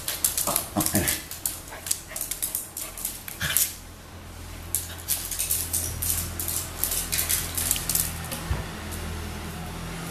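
A dog and a cat scuffling on a tile floor: rapid clicking and skittering of claws on the tiles, with brief dog vocalisations about half a second to a second in. The clicks thin out after about four seconds, when a steady low hum comes in.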